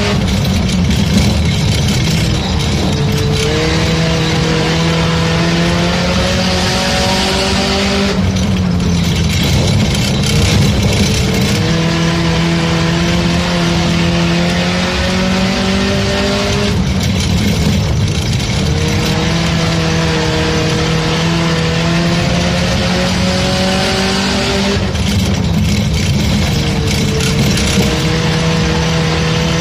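Four-cylinder race car engine running hard in a race. Its pitch climbs steadily under acceleration, then drops back a few times as the throttle comes off, over a constant hiss of tyre and wind noise.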